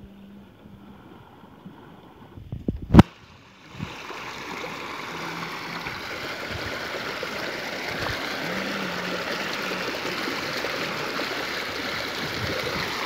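Muddy runoff water pouring from a channel in the bank into a pond, making a steady rushing, splashing sound that starts about four seconds in and slowly grows louder. Just before it there is a single sharp knock.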